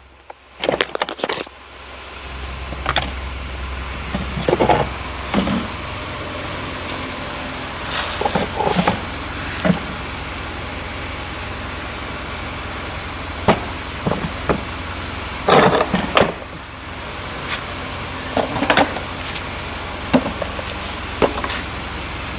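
Irregular knocks, clicks and short rattles of the removed A/C evaporator core and dashboard parts being handled, over a steady background hum.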